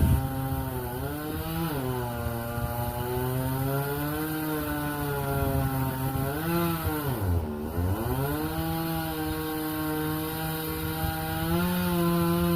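Two-stroke chainsaw cutting a dead oak, the engine pitch wavering as the chain bites into the wood. About seven seconds in, the pitch sags sharply under load and then recovers.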